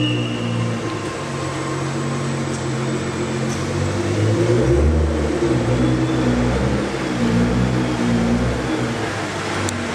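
Nissan GT-R's twin-turbo V6 running at low revs as the car creeps along at walking pace, its pitch shifting slightly with light throttle. A deeper drone comes in about halfway through.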